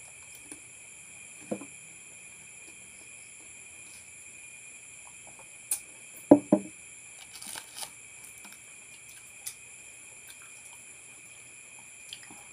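Crickets chirring in a steady high drone, with a few sharp table-top knocks over it; the loudest, a quick pair about six seconds in, come as a drinking glass is handled and set down, followed by small clinks and eating noises.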